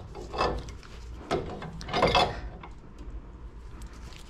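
Three short scrapes as a valve is tightened onto the water pipe, over a low steady hum.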